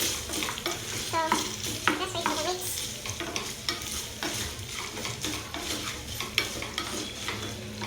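Meat sizzling as it browns in frying oil in a pan, with a utensil repeatedly scraping and stirring it against the pan.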